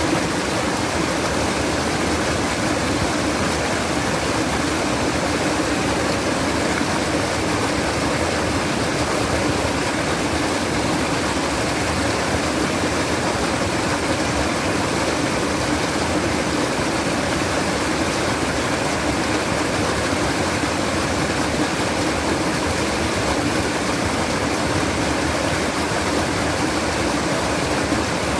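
Flowing water babbling steadily, a continuous even rush with no breaks.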